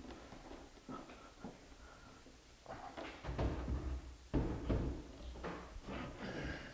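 Heavy plywood enclosure top being carried and lifted onto a wooden cabinet frame: wooden knocks and bumps of handling, a few light ones at first, then heavier thuds from about three seconds in, the sharpest a little past the middle.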